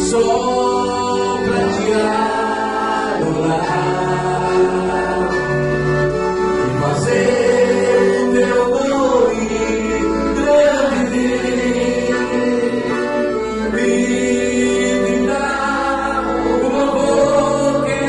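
Christian worship song: a group of voices singing together over instrumental accompaniment, with long held notes.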